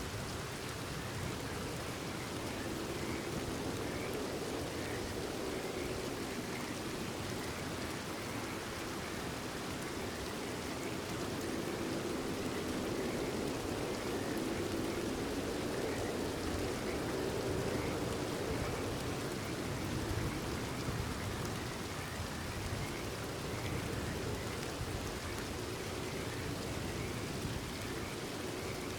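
Steady rain falling, with frogs calling over it in short repeated calls.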